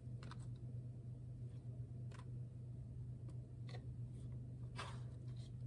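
Halved cherry tomatoes being handled and dropped into a salad bowl of greens and chickpeas: a few faint, scattered soft clicks and ticks, the clearest about five seconds in. A steady low hum runs underneath.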